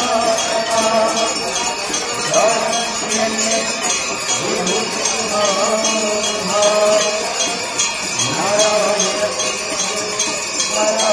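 Ganga aarti ritual hand bells ringing in a fast, unbroken rhythm, with a devotional hymn sung over loudspeakers in long held and gliding notes.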